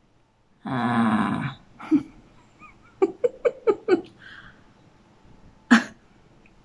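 A woman's rough, growling vocal sound lasting about a second, a playful zombie growl. It is followed by a quick run of about five short laughs, and one more short vocal burst near the end.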